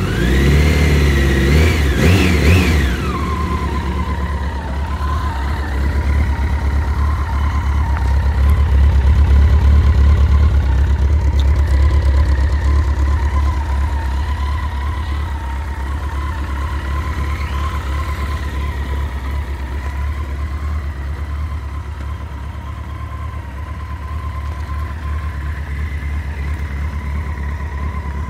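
Honda CBR1100XX Blackbird's inline-four engine blipped two or three times in the first few seconds, then idling steadily with a steady whine over it. The owner is asking what is causing a noise from the left side of the engine.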